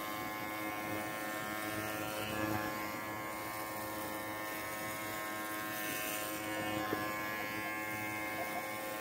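Oneisall cordless dog clippers running with a steady electric hum as they trim a dog's thick coat.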